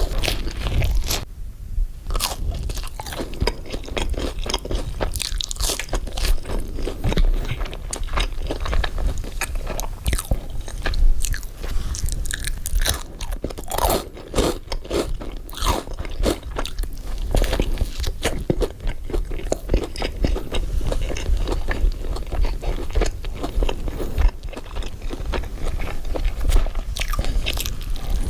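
A person biting into and chewing a burger, with crunching and a dense run of small irregular clicks and mouth noises, over a steady low rumble.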